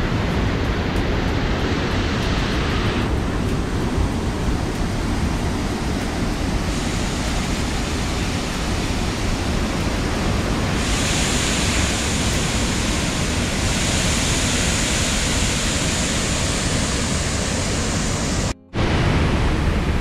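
Steady rush of a river and waterfall. Its brightness shifts abruptly a few times, and it cuts out for a moment near the end.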